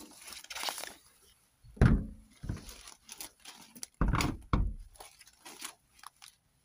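Someone scrambling through dry undergrowth: dead leaves crunching and twigs snapping underfoot, with two heavy thuds of footfalls about two and four seconds in.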